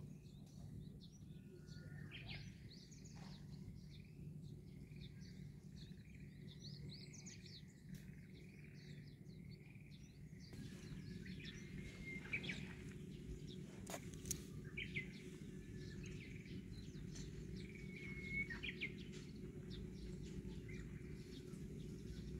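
Faint outdoor ambience of several birds chirping and calling over a steady low background rumble.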